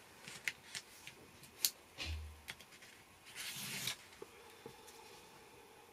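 Quiet handling of a paper card on a craft mat: a few light clicks and taps, a soft low bump about two seconds in, then a brief rustle as a hand sweeps across the desk.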